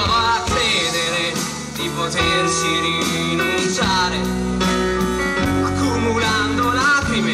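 Pop band playing live: electric guitars, bass, keyboard and drums, with a melody line bending over steady chords and a regular drum beat.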